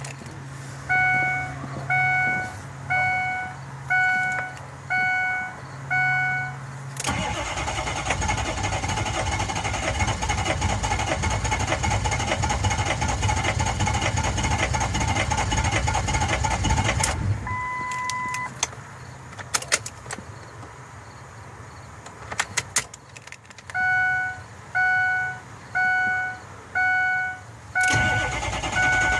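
A 6.0-litre engine cranking on its starter for about ten seconds without catching, a no-start. A dashboard warning chime sounds about once a second before and after the cranking, and a two-tone beep follows as the cranking stops.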